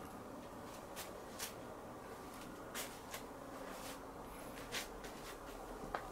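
A cat squirming and rolling about with its head in a bag, the bag giving off scattered short crinkles and rustles at irregular moments, over faint room tone.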